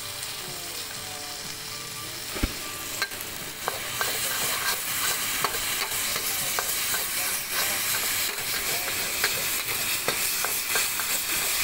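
Kuey teow noodles frying with a steady sizzle in a large steel wok over a gas burner, while a long-handled metal spatula scrapes and clinks against the wok. The sizzle gets louder about four seconds in, as the noodles are tossed over high flame.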